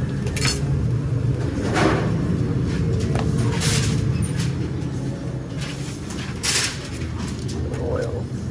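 Restaurant kitchen noise: a steady low hum of kitchen equipment under a few short knocks and scrapes from sandwich-making work, one about half a second in, others near two, four and six and a half seconds.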